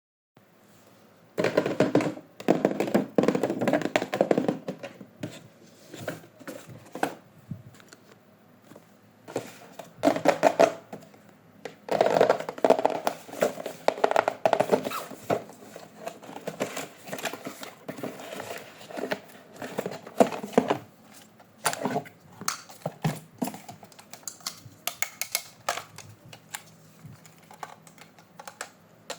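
Toy packaging and plastic toys being handled and opened by hand: a busy run of taps, clicks and rustles, in dense bursts at the start and again in the middle, thinning to scattered clicks near the end.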